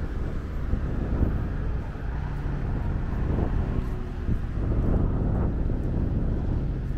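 City traffic: a steady low rumble of cars and motorbikes on a busy road, with a couple of vehicles swelling past about three and five seconds in.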